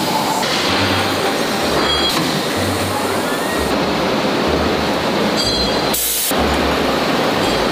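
Steady, loud factory machine noise that changes abruptly several times, with a low pulsing thump recurring about once a second beneath it.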